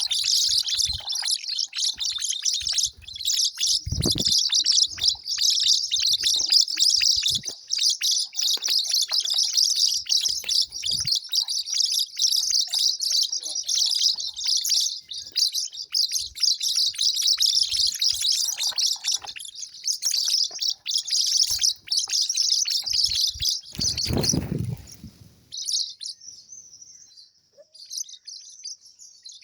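Many small birds chirping rapidly and without pause, thinning to a few scattered higher chirps near the end. A brief low rumble comes in just before the chirping thins.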